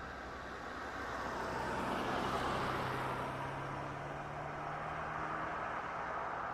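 A car driving past: tyre and engine noise swells to its loudest about two seconds in and eases off, then rises a little again near the end, with a steady low engine note underneath.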